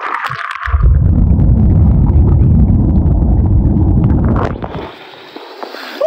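A splash, then the loud, muffled low rumble of churning waterfall water with the microphone at or under the surface, lasting about four seconds before it drops away near the end.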